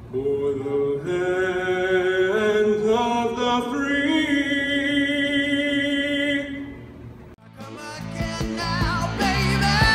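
Bagpipes playing a slow melody of long held notes that step up and down, fading out about seven seconds in. Then a rock song with guitar and a steady beat starts.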